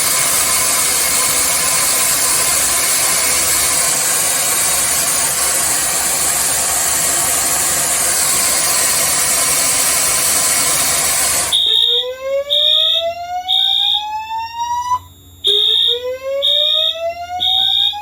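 A hair dryer blows hot air on an FST-951R rate-of-rise heat detector, a steady loud rush for about eleven seconds, then stops abruptly as the detector trips the fire alarm. A Wheelock AH horn on Wheelock sync sounds high beeps in groups of three, and the Notifier DVC's whoop tone rises slowly in pitch twice.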